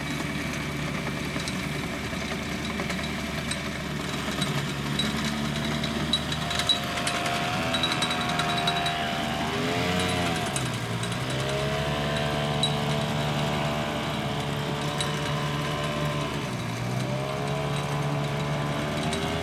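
Small engine on a reed- and weed-cutting boat, running steadily as it drives the cutting machine. Its pitch sags and comes back up twice: about ten seconds in, and again near the end.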